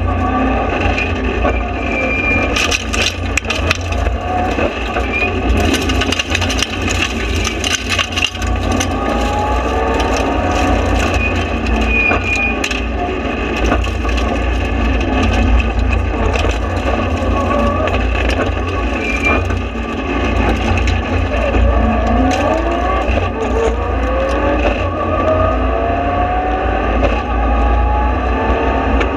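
Mitsubishi Lancer Evolution rally car's turbocharged four-cylinder engine heard from inside the cabin, running hard and climbing in pitch again and again as it pulls through the gears, dropping at each shift. Sharp clicks and knocks sound over it from about two to eight seconds in.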